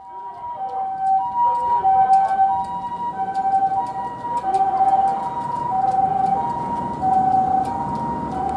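Japanese ambulance's two-tone hi-lo siren, alternating between a higher and a lower tone about every two-thirds of a second. The vehicle's low rumble rises near the end.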